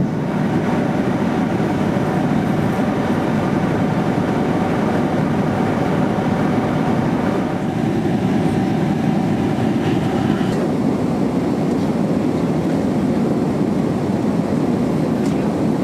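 Boeing 767-300ER cabin noise in cruise flight: a steady rush of engine and airflow noise heard from inside the cabin. Its tone shifts slightly twice, about seven and a half and ten and a half seconds in.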